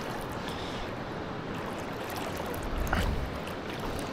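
Steady rush of river water flowing over rocks, with a brief low bump about three seconds in.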